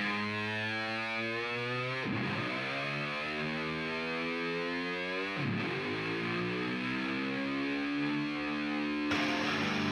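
Intro music: sustained, distorted electric guitar chords, twice swept through by an effect, with a quicker strummed rhythm coming in near the end.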